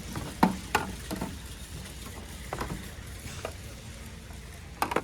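About six short, sharp clicks and light knocks, irregularly spaced, over a steady low hum; the loudest comes about half a second in.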